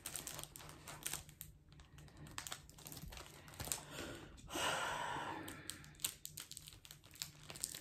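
Plastic packaging being handled and pulled at while someone tries to open it: scattered small clicks and crinkles, with one louder, longer crinkle of about a second a little past the middle.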